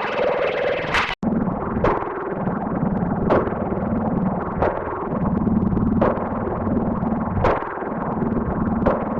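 Church bell sound effect, electronically processed: after an abrupt cut about a second in, a bell is struck about once every second and a half over a steady low drone. The first second is the end of a different bell clip with a higher steady note.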